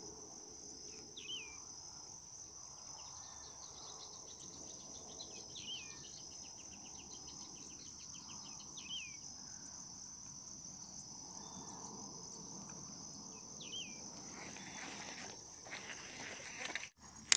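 Steady, faint, high-pitched chorus of insects such as crickets in marshy grassland, with a bird's short rising call repeated about four times, a few seconds apart, and a brief rapid ticking trill. Soft handling noise near the end.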